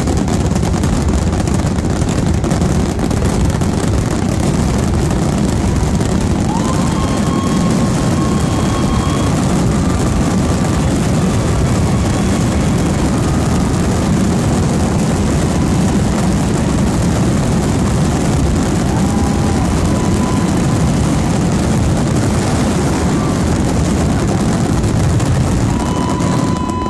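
Fireworks finale barrage: aerial shells launching and bursting so densely that the reports merge into one continuous low rumble with no gaps. A few brief thin whistling tones rise over it.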